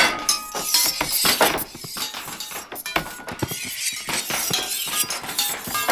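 A dense, irregular clatter of many metal blade clashes and clinks, like a crowd melee of swords. The hits overlap at random moments, some louder and some softer, some higher and some lower, and several ring on briefly: dozens of knife-clash sound effects layered with random delay, volume and pitch.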